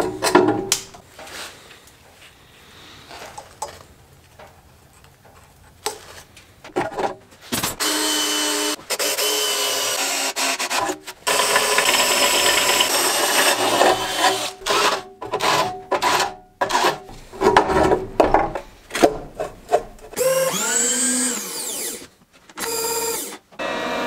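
Drill cutting into steel, heard in several short edited clips with abrupt cuts between them. Quieter handling of metal parts comes first, and near the end a drill motor spins up with a rising whine.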